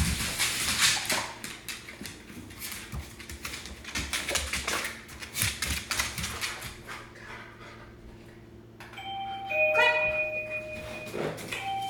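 Scuffling and light knocks as a dog moves about. About nine seconds in, a wireless doorbell plays a short chime of a few notes, the cue in training for the dog to go to his place bed.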